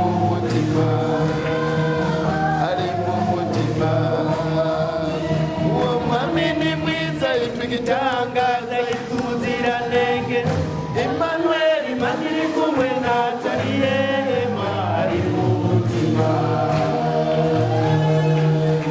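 A choir singing a gospel chorus, with held low notes underneath the voices.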